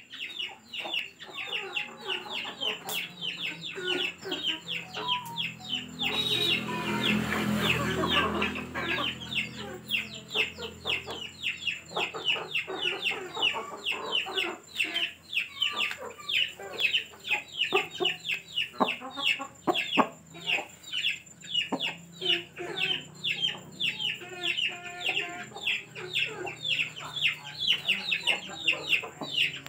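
Chickens in a poultry yard: a steady stream of short, high peeping calls, several a second, with clucking. A louder, rougher sound comes about six to eight seconds in.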